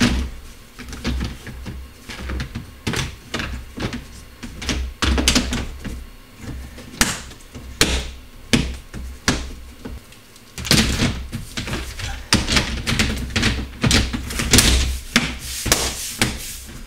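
Plastic trim cover and air-intake vent grille being fitted and pressed into place by hand: irregular clicks, knocks and light rattles of hard plastic, with low handling rumble. The clicks come thicker and louder in the second half.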